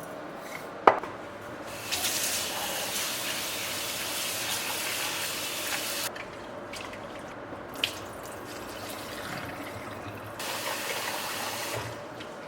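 Tap water running into a sink in two spells, about four seconds and then about a second and a half, with a sharp knock about a second in, the loudest moment, and a smaller click near eight seconds.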